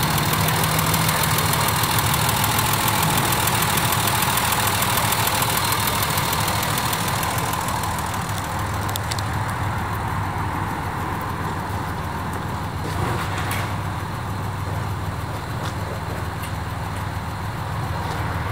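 1957 Mercedes-Benz 220S's 2.2-litre inline-six engine idling steadily, a little fainter after about seven seconds, with a few light clicks in the second half.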